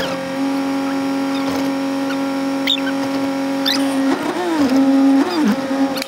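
Windshield wiper squeaking across the glass about every second and a bit, over a steady hum in a vehicle cab. About four seconds in, a brief wavering sound slides up and down in pitch.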